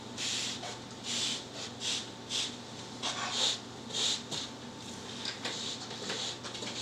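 Broom swishing over office carpet in short strokes, about one to two a second, growing fainter in the second half.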